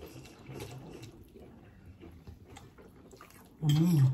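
Faint clicks and rustles of people eating at a table. Near the end comes a loud, short wordless vocal sound whose pitch rises and then falls.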